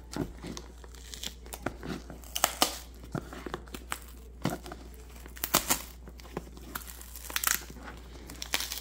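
Packing tape and cardboard being picked at and pulled on a tightly taped, heavily glued shipping box: irregular crinkling, scraping and tearing.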